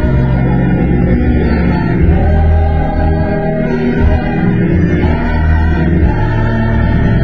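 Gospel choir singing with organ accompaniment.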